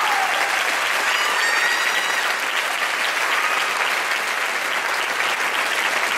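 Audience applauding steadily at the end of a sung duet.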